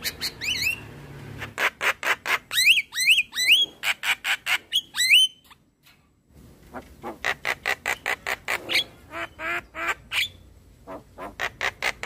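Javan myna calling: rapid runs of harsh squawking notes mixed with a few short rising whistles, a brief pause about six seconds in, then another run of harsh calls.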